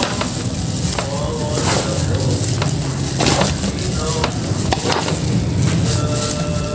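A plastic spatula stirring and scraping seasoned cooked rice in a large metal bowl: a steady rustling mash with several sharp knocks of the spatula against the bowl. The spices are being worked through the rice before frying.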